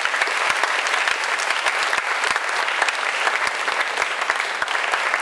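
An audience applauding steadily, a dense patter of many hands clapping at once in a hall.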